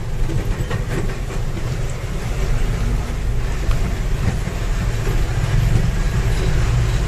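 Steady low rumble of a vehicle's engine and tyres heard from inside as it drives across a bridge, with a few light knocks and rattles.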